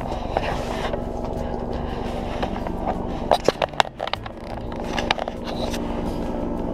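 An engine running steadily, a low even drone, with a few sharp clicks and rustles near the middle and one more near the end.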